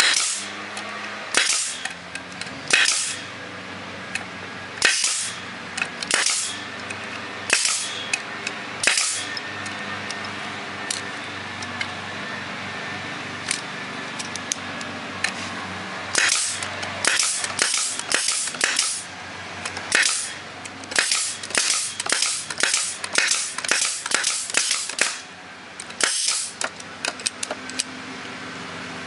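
Pneumatic stapler, fed by a pancake air compressor, firing staples into 1-inch pressure-treated wood: sharp bangs, each with a short hiss of air. The shots come a second or two apart at first and then in quick runs over the second half, with a steady low hum underneath.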